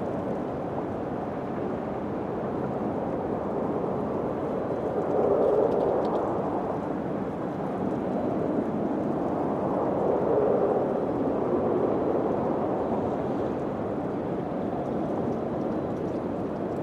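Wind blowing steadily as a low rushing noise, swelling into two stronger gusts, about five and ten seconds in.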